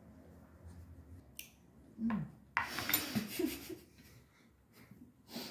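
Metal spoons and tea glasses handled on a wooden serving board: a light click, then about a second of louder scraping and clinking halfway through.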